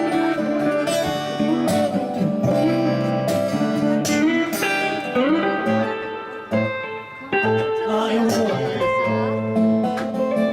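A band playing an instrumental break of a blues-tinged song, a guitar taking the lead with bending, sliding notes over the accompaniment.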